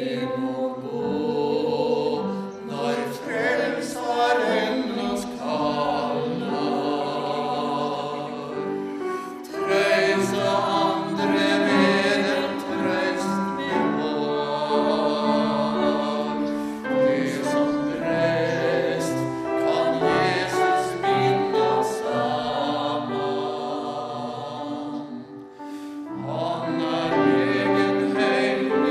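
A woman and a man singing a sacred song together as a duet, with upright piano accompaniment. The phrases are held and legato, with a brief breath pause a few seconds before the end.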